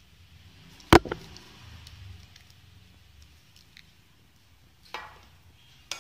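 A sharp clink of kitchenware about a second in, with a quick smaller one right after, then a softer knock and a click near the end: a stainless steel bowl knocking against the rim of a glass mixing bowl while a batter-like mixture is poured out of it onto flour.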